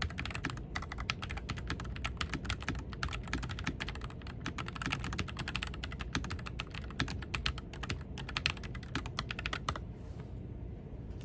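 Fast, continuous typing on a pre-lubed mechanical keyboard, a dense run of key clicks that stops near the end, over a steady low hum.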